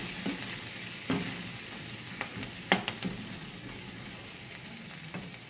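Chopped onions sizzling as they fry in hot oil in a kadhai, with a steel ladle scraping and knocking against the pan several times as they are stirred. The sizzle slowly fades.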